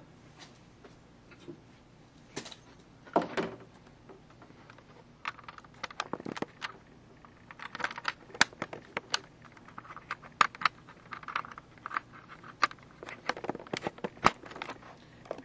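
Irregular clicks, taps and light knocks of a camera's power cord and plug being handled and plugged in, sparse at first and much busier from about five seconds in.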